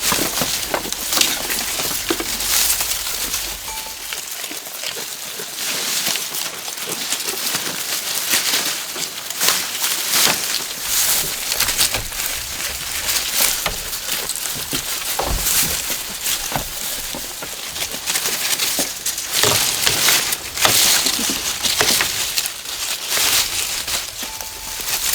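Continuous rustling and crackling, with many small clicks and knocks scattered irregularly throughout.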